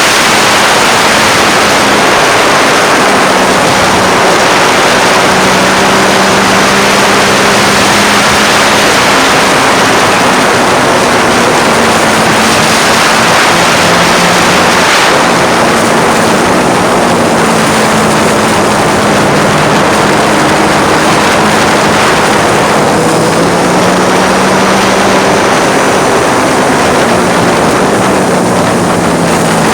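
Triumph Street Triple's 675 cc three-cylinder engine under way, its note rising and falling with the throttle, half buried under loud wind noise rushing over the phone's microphone.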